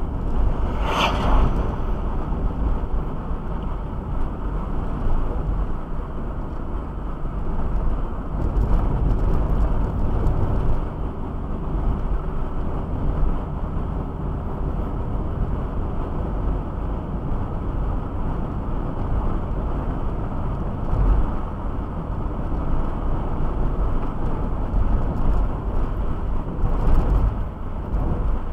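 Steady low rumble of a vehicle on the move, with a brief higher-pitched sound about a second in.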